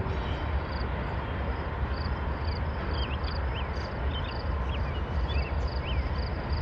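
Three-unit Norfolk Southern diesel locomotive lash-up approaching slowly, its engines giving a steady, deep rumble.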